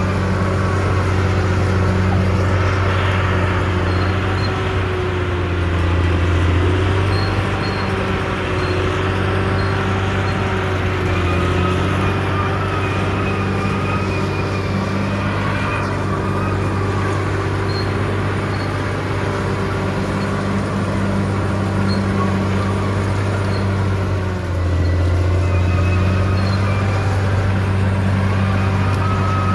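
Caterpillar D6R XL bulldozer's diesel engine running steadily under load, its pitch sagging briefly a few times and picking up again; about three-quarters of the way through it dips for a moment and then comes back louder.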